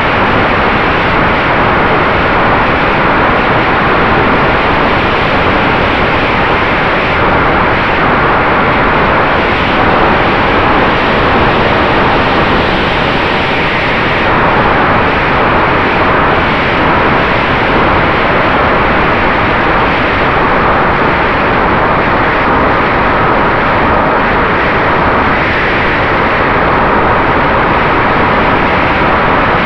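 Ritewing Mini Drak flying wing's electric motor and pusher propeller running steadily in flight. Heard through the onboard camera, buried in heavy wind rush on the microphone, with a faint steady hum.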